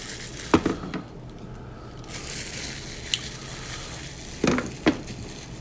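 A person eating crispy fried tacos close to the microphone: a few sharp crunches and mouth smacks, about half a second in, around a second in and twice near the end, over quiet chewing.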